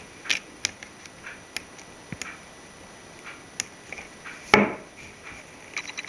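Small scattered clicks and ticks of a beading needle against glass seed beads and the embroidery canvas during bead stitching, with one louder rasping rustle about four and a half seconds in.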